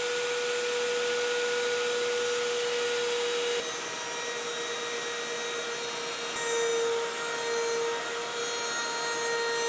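Compact trim router running at speed with a steady high whine as its bit mills the channel of an aluminium extrusion profile, widening it to take a 6 mm belt. In the second half the level wavers as the cut loads the motor.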